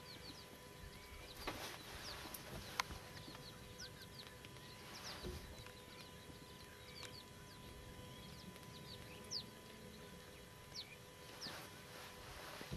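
Faint outdoor ambience: birds give many short, high, falling chirps throughout, over a faint steady hum, with a single sharp click about three seconds in.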